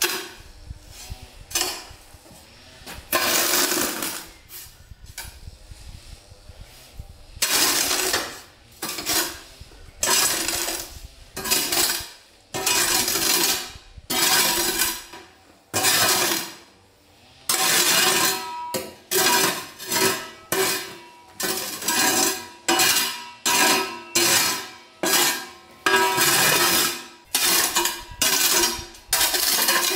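A stiff broom sweeping dry lime-and-sand mortar mix across stone flagstones, each stroke a scrape of grit over stone. The strokes are a few seconds apart at first and come quicker, about one a second, in the second half.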